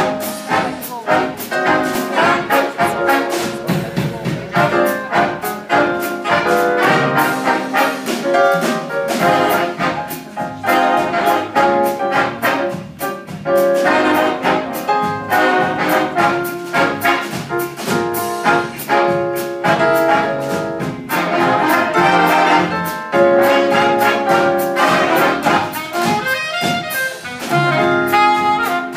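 A jazz big band playing live: trumpet, trombone and saxophone sections together over a steady drum beat.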